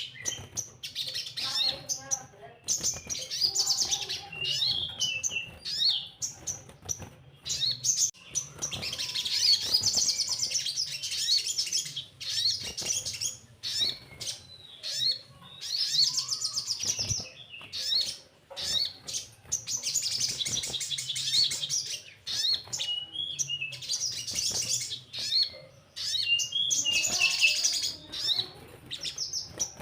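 Sogon, a small sunbird, singing very high, fast chattering trills and chirps in bouts of a few seconds with short pauses between them: a lure recording of the kind played to get captive sogon singing.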